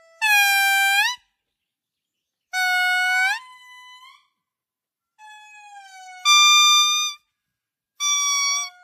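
Indri (babakoto) lemur singing: four loud, clear held notes about a second each, coming every two to three seconds, each bending upward at its end, with fainter lower notes trailing after some of them.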